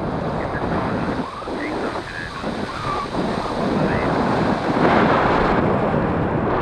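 Wind rushing over the microphone of a paraglider pilot's camera in flight, a steady, gusting rush that swells near the end.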